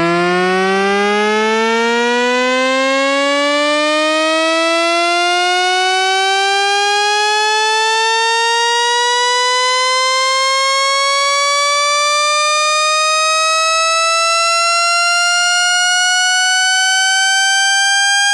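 A 'slide' sound effect: one buzzy tone gliding slowly and steadily upward in pitch, climbing quickly at first and then ever more gently, at a constant loud level.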